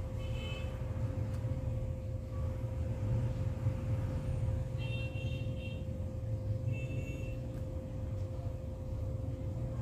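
Steady low background rumble with a faint constant hum. Brief high-pitched chirps come about half a second in, for about a second around five seconds in, and briefly near seven seconds.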